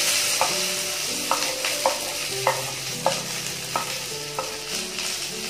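Sliced shallots, green chillies and garlic sizzling as they go into hot coconut oil in a kadai. The hiss starts suddenly and holds, while a slotted ladle knocks and scrapes against the pan about once or twice a second as the mix is stirred.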